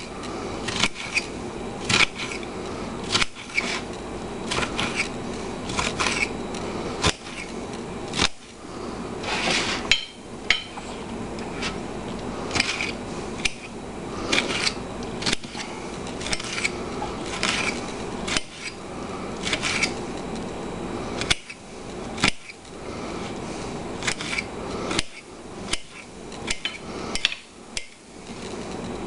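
Kitchen knife chopping cucumber into chunks: a run of irregular knocks and clicks as the blade cuts through and strikes the surface beneath.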